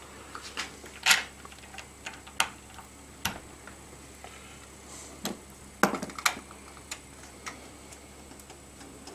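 Irregular clicks and knocks of a Monster HDMI cable being handled and fitted into a clamping test rig, about a dozen sharp taps with the loudest about a second in and a cluster near six seconds.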